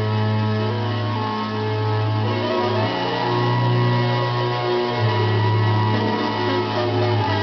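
Music playing from a record on a Magnavox portable stereo record player: held notes over a steady bass line.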